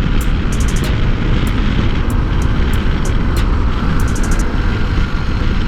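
Wind rushing over a rider's helmet microphone on a Honda CB 300 motorcycle cruising at road speed, with the bike's single-cylinder engine running steadily underneath.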